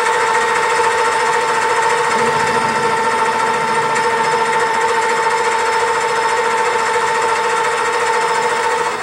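Hobby lathe running steadily, its motor and gears giving a steady two-note whine over a mechanical rattle, with the spindle turning a small steel bar. It shuts down right at the end.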